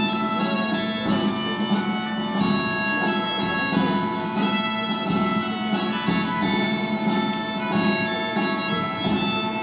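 Bagpipe music: a slow melody of held notes played over a steady drone.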